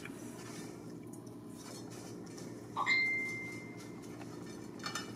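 A single clink against a ceramic plate about three seconds in, ringing with one clear tone for about a second as it fades, over a faint steady hum.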